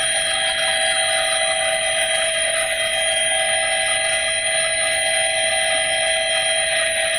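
Helicopter in flight heard from inside the cabin: a loud, steady whine of several high tones over a constant rushing hiss, unchanging throughout.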